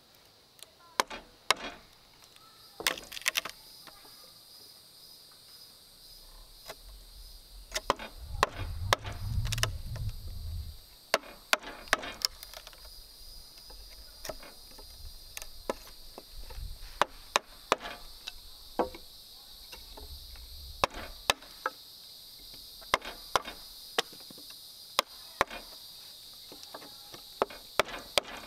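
Irregular sharp blows on wood, roughly one or two a second, as in chopping or striking timber, over a steady high insect drone. A low rumble rises briefly about eight seconds in.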